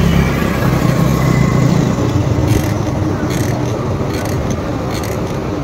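Road traffic on a busy town street, heard from a moving bicycle, with a steady low rumble.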